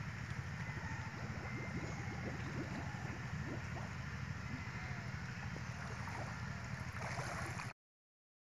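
Pond water swishing and splashing around a person's legs as he wades knee-deep and works with his hands under the surface, with wind rumbling on the microphone. The sound cuts off abruptly near the end.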